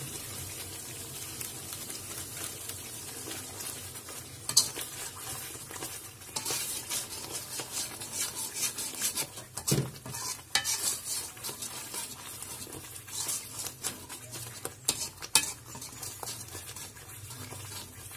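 Spice paste sizzling in a metal pan as instant roast masala powder is stirred into it with a wire-mesh skimmer. A steady frying hiss runs under irregular scrapes and clinks of the wire skimmer against the pan, which start about four seconds in.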